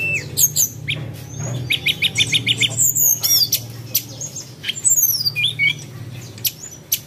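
Several birds chirping, whistling and squawking in quick, overlapping calls, including a fast run of about eight even notes, over a steady low hum.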